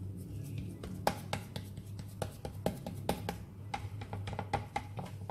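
A spatula pressing and smoothing soft, sticky sweet potato halua spread in a serving tray, giving irregular light taps and scrapes as it strikes the mash and the tray, several a second.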